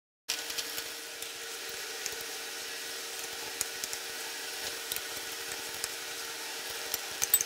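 Batter-coated fish fillets deep-frying in hot oil in a pan: a steady sizzle with scattered crackling pops, and a few sharper pops near the end. A faint steady hum sits beneath it.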